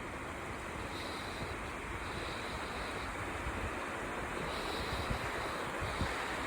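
Wind blowing in a snowstorm: a steady rushing hiss, with a low, uneven rumble of wind buffeting the microphone.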